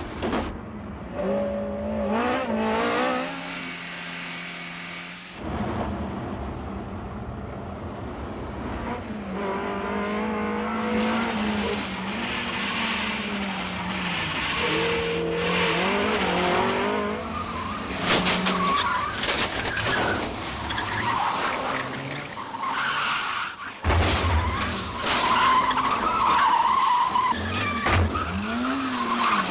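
Car engines revving hard, rising in pitch and dropping back at each gear change, then tyres squealing as the cars corner fast, with a few sharp knocks.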